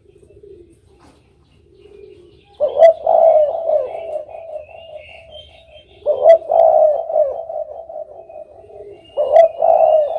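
Spotted dove (derkuku) cooing: three loud coo phrases, about three and a half seconds apart, with softer, lower cooing between them.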